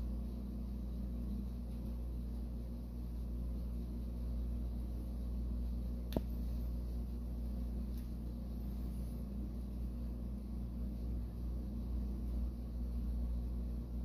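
Steady low hum of a fan-driven electric motor, with one sharp click about six seconds in.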